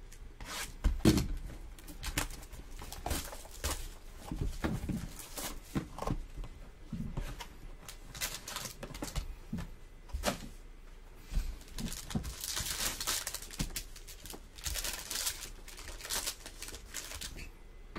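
Cardboard box and a foil trading-card pack being handled with scattered taps and clicks. The foil wrapper crinkles and is torn open in two noisy stretches, about twelve and fifteen seconds in.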